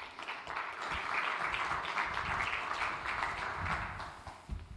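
Audience applauding, a dense patter of many hands clapping that builds within the first second, holds, and fades away near the end.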